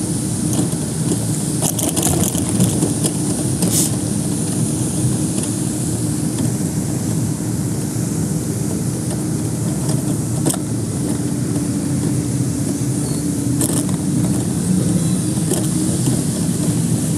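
Steady mechanical hum holding one constant tone, with a few faint clicks.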